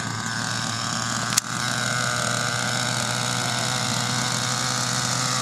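Radio-controlled model helicopter running steadily on the ground, its motor and spinning rotor making an even drone with a constant pitch. A single sharp click sounds about a second and a half in.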